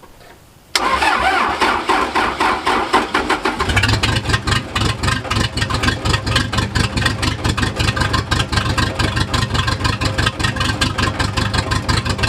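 Case bulldozer's diesel engine being started: cranking begins suddenly about a second in, then the engine catches near four seconds in and runs with a fast, even beat.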